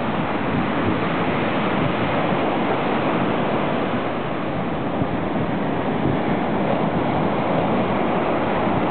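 Heavy ocean surf: waves breaking and foaming white water rushing up the beach, a steady, even wash of noise with no single crash standing out.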